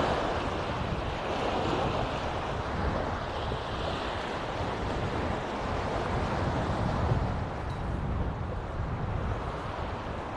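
Small Mediterranean waves breaking and washing up a sandy beach, swelling and ebbing every few seconds, with wind rumbling on the microphone.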